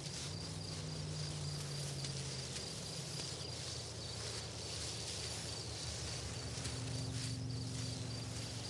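Insects chirping in a steady, high-pitched pulsing over open-field background noise, with a low steady hum underneath that shifts pitch a few times.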